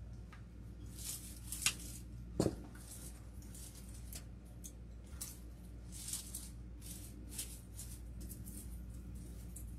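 Cutters snipping artificial flower stems, with two sharp snips close together about two seconds in, amid light rustling and handling of artificial greenery.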